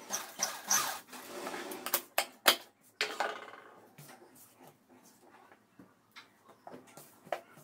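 Cotton cloth rustling as it is handled and slid across a sewing machine table, with a few sharp clicks about two seconds in. Quieter scattered ticks of handling follow.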